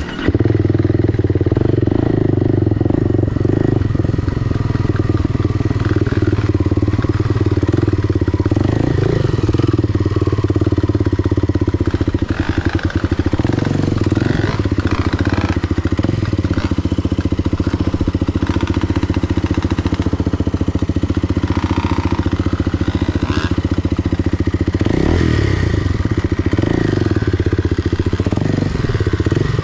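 Enduro motorcycle engine running continuously under way, its pitch rising and falling several times as the throttle is worked.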